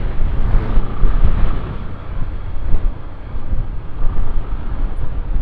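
Wind buffeting the microphone of a moving motorcycle, a rough, fluctuating rumble over the bike's engine and road noise at highway speed.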